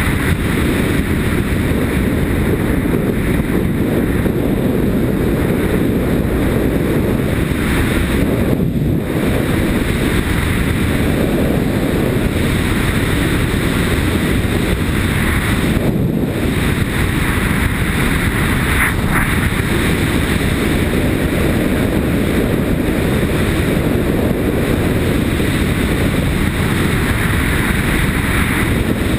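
Steady low wind rumble over a helmet-mounted camera while riding a Yamaha Ténéré motorcycle, with the bike's engine and its tyres on gravel blended into it.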